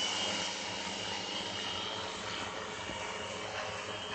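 ST800 multicopter hovering, its electric motors and propellers giving a steady hum of several held tones over a rushing hiss.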